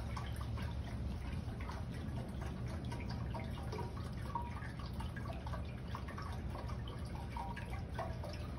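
Water from a red ceramic urn fountain trickling and splashing in many small plinks, over a steady low rumble of wind on the microphone.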